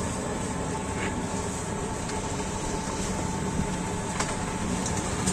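Steady background noise of a busy street-food stall: a constant hum with a few faint clicks and taps, as buns are pressed onto a flat steel griddle.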